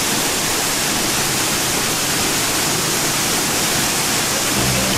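Steady rushing of water, an even hiss that does not change. Near the end a low beat of background music comes in.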